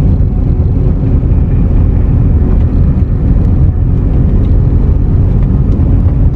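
A car driving slowly over a rough, broken road, heard from inside the cabin: a loud, steady low rumble of engine and tyres, with a few faint clicks and rattles.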